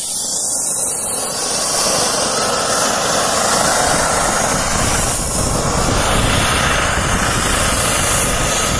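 JetCat P60 model jet turbine running, a steady jet roar with a thin high whine that dips in pitch around the middle and climbs back, as the RC jet taxis and rolls along the runway for takeoff.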